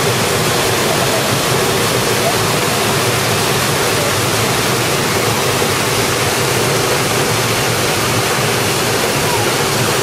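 Mountain beck tumbling over rocks into a pool: a steady, even rush of falling and running water.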